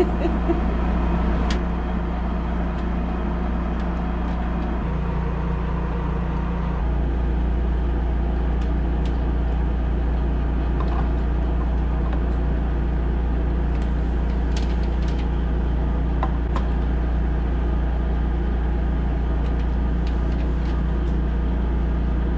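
An engine or motor running steadily with a low, even drone. Its tone shifts slightly about five and seven seconds in, and a few faint clicks sound over it.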